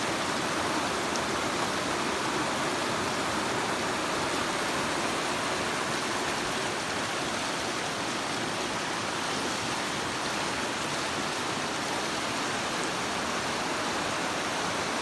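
River water running over rocks, a steady rushing.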